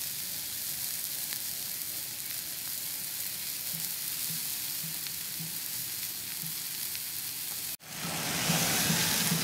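Steak and garlic cloves sizzling steadily in a hot frying pan. The sound cuts out briefly near the end and comes back louder.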